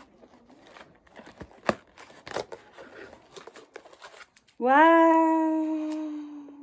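Cardboard snack box being opened and handled, with scattered clicks, rustles and small tearing sounds. About four and a half seconds in, a loud drawn-out 'aaah' is held for about two seconds, slowly fading.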